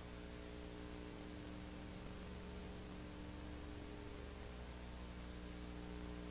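Faint steady electrical hum with several low, even tones, under an even hiss of old tape or recording noise. No other sound.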